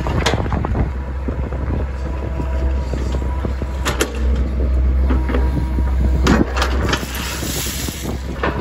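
CAT 307B midi excavator working: its diesel engine runs with a steady low hum while the bucket digs into and lifts crushed stone, with sharp clanks and stone rattles, the loudest about four and six and a half seconds in.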